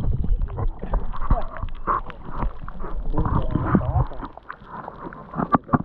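Creek water sloshing and gurgling around a camera dipped under the surface, heard as a muffled low rumble with wavering bubbly tones. About four seconds in it gets much quieter, leaving a few light splashes and knocks near the end.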